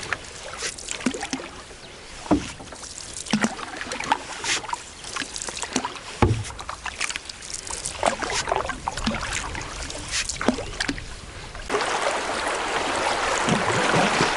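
Canoe paddling: irregular paddle strokes splashing, with sharp knocks of the paddle against the canoe. About twelve seconds in, a steady rush of running water suddenly takes over.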